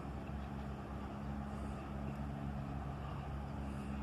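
Steady low hum of a distant vehicle, holding several even low tones without change.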